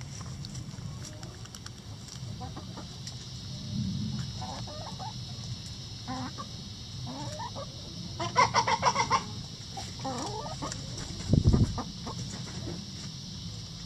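Backyard chickens clucking softly as they forage, with a burst of six or seven loud, rapid clucks a little past the middle. A brief low thump follows a couple of seconds later.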